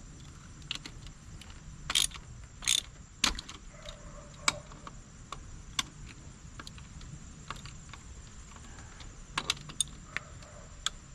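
Scattered metallic clicks and clinks of hand tools and bolts being handled on the engine, with a few sharper clanks in the first half and a quick cluster near the end.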